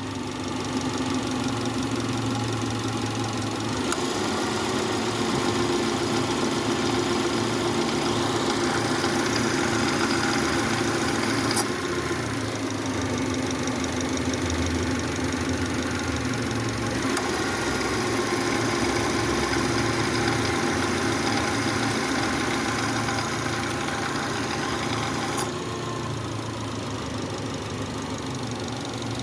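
2011 Subaru Legacy's boxer engine idling with its A/C compressor running, a steady mechanical knocking noise that the mechanic lists as a faulty compressor. A few sharp clicks come through, and the sound drops a little about three-quarters of the way in.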